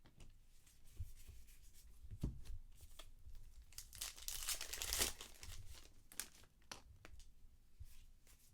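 A trading-card pack wrapper being torn open and crinkled, loudest in a rustling tear about four to five seconds in, with light taps and clicks of cards being handled around it.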